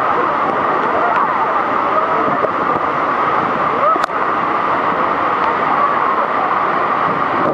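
Steady roar of falling water and spray from Niagara Falls, with passengers' voices talking over it. A sharp click comes about four seconds in.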